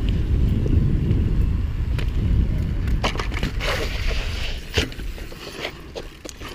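BMX bike tyres rolling over rough, cracked concrete, with wind buffeting the microphone of a camera carried on a moving bike: a low rumble that fades after about five seconds. Several sharp clicks and knocks from the bikes come about two, three and five seconds in.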